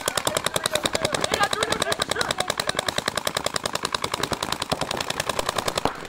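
Tournament paintball markers firing rapid strings of shots, about a dozen a second, without letting up.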